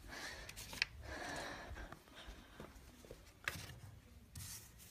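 Rustling and handling noise from a phone being carried by hand, with two sharp clicks, one about a second in and one past three seconds in, and a short hiss of rustling near the end.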